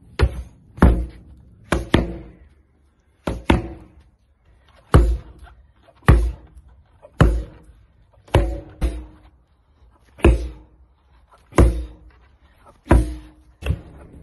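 A hand axe and shield landing blows on a training post and a stack of tyres: about fifteen sharp knocks at an irregular pace, some in quick pairs, each with a short ringing tail.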